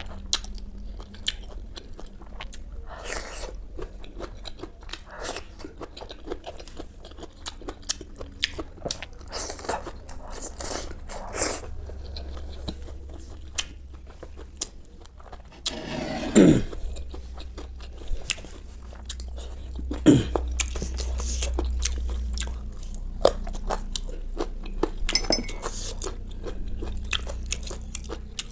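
Close-miked crunching and chewing of crisp food, with quick irregular bites and mouth sounds. Two louder, lower sounds that drop in pitch come a little past the middle.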